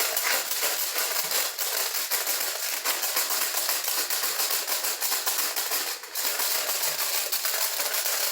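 Wood fire crackling and hissing: a dense, steady run of small pops and snaps.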